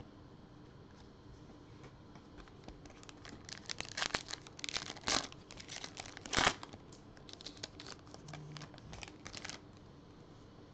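A shiny foil trading-card pack wrapper being torn open and crinkled, with the cards pulled out. The crackling comes in quick clusters for about seven seconds, starting a couple of seconds in.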